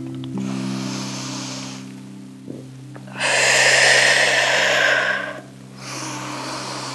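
Deep, slow breaths in and out close to a clip-on microphone: three long breaths, the loudest about three seconds in, over soft background music of low held notes.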